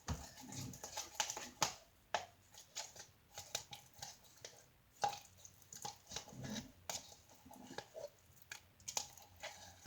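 Freshly mixed slime made with baking soda and contact lens solution squelching, with irregular sticky clicks and soft squishes as it is worked by hand or spoon.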